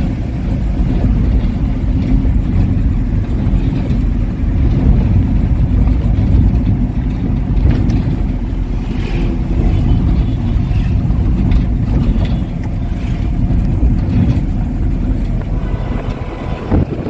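Steady low rumble of engine and road noise heard from inside the cabin of a moving vehicle.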